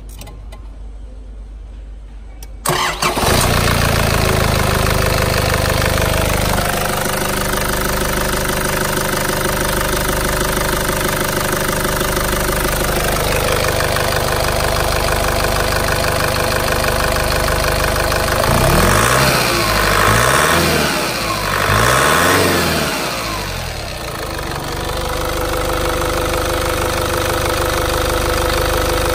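2005 Nissan Navara four-cylinder turbo diesel engine cranking and starting about three seconds in, then running. It is revved up and down twice around the two-thirds mark, then settles back to a steady idle.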